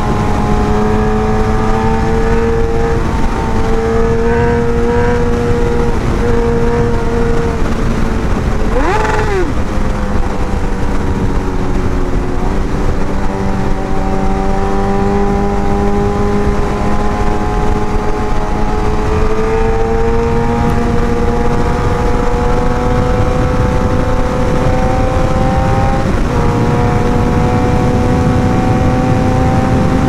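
Suzuki GSX-R 1000 inline-four engine running at high revs on the move, with steady wind rush on the microphone. The engine note climbs slowly and drops suddenly a few times, once sharply about nine seconds in and again near the middle and toward the end.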